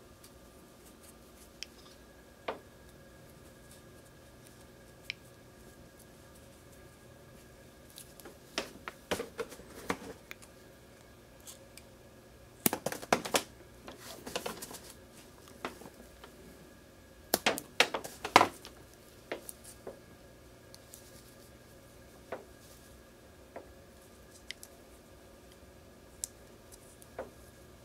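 Close handling noise of fingers working tiny 6mm brushed drone motors and their wire leads: scattered small clicks and a few short bursts of crackly scratching and rustling in the middle, over a faint steady hum.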